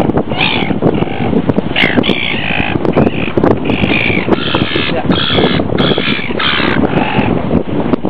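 Gulls calling overhead in a rapid series of short squawks, about a dozen, over a steady low rumble.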